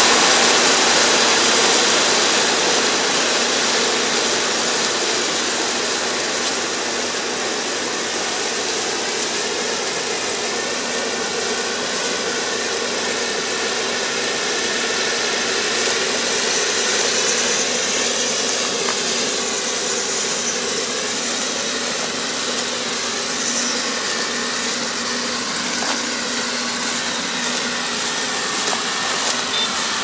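Engine of an ER470 crawler rice combine running steadily as it harvests, a continuous drone that fades over the first few seconds as the machine moves away.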